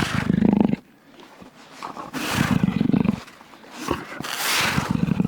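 Jaguar calling with a series of hoarse, rasping grunts, like a saw, three of them about two seconds apart.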